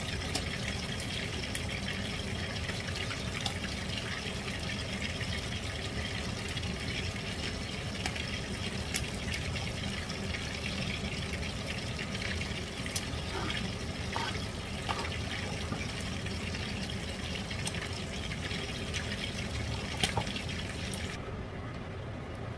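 Knife slicing a red bell pepper on a wooden cutting board: a few scattered sharp clicks as the blade meets the board, over a steady rushing hiss that thins out near the end.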